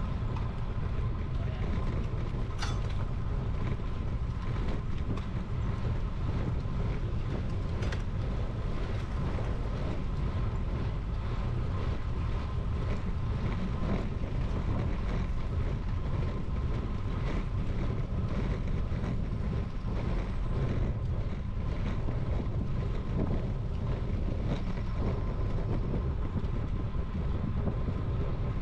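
Ride noise from a road bike in motion: wind rushing over the microphone and tyres rolling on rough asphalt, a steady low rumble with a few sharp clicks from bumps.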